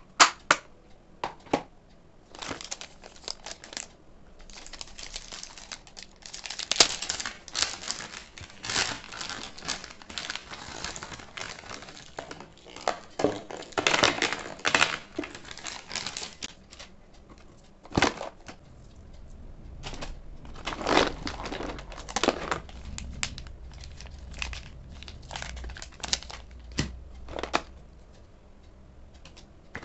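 Hands rummaging through art supplies in a cardboard box: plastic cases and packaging crinkling and rustling, with sharp clicks of plastic pens and cases knocking together.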